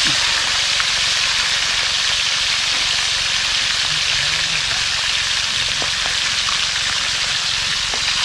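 Fish frying in hot oil: a steady sizzle with a few faint pops.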